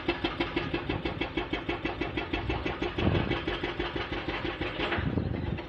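Excavator-mounted hydraulic rock breaker hammering hard rock in a fast, even series of blows, about eight a second, over the excavator's engine, stopping abruptly at the end.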